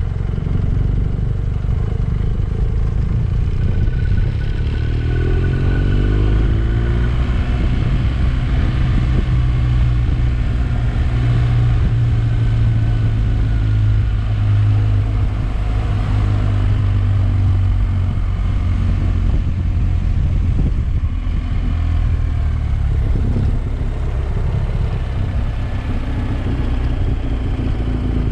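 Motorcycle engine running on the move, its note rising and falling a few times with throttle and gears, over a steady road rush.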